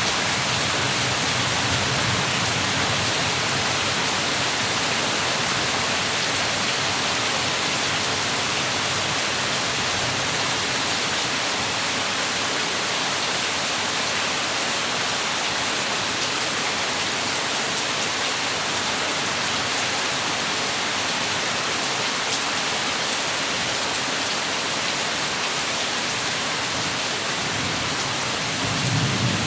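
Heavy rain falling in a steady, dense hiss, with a brief low rumble near the end.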